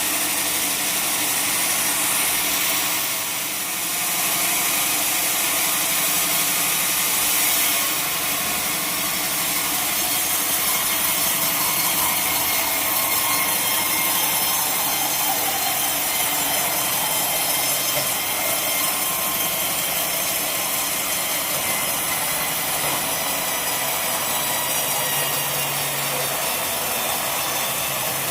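Sawmill saw running steadily through a large log, a continuous high-pitched cutting noise with a brief dip in level about three and a half seconds in.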